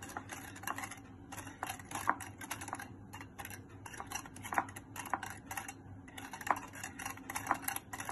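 Wire balloon whisk mixing thickened whipped cream and sugar in a bowl, its wires clicking and tapping irregularly against the bowl several times a second.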